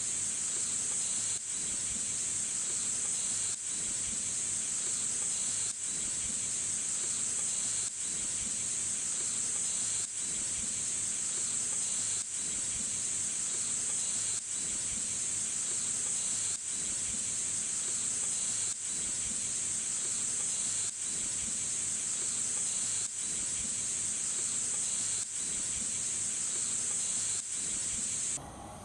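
Steady, high-pitched chorus of insects, dipping briefly about every two seconds and cutting off suddenly near the end.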